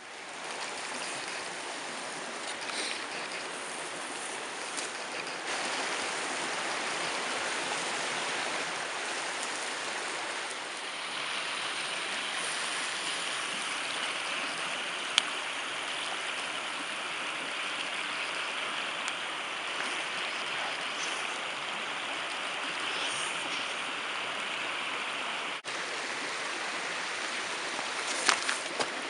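Mountain stream rushing steadily, with a few sharp clicks, one about halfway and a small cluster near the end.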